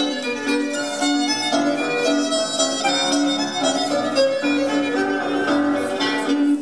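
Instrumental dance music led by a fiddle: many quick notes over a repeating steady low tone.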